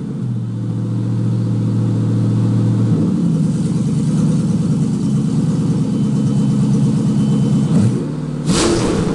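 GM LS-series V8 running on a standalone wiring harness, idling with a steady note that steps up in pitch about three seconds in. It gets a quick blip of the throttle near the end.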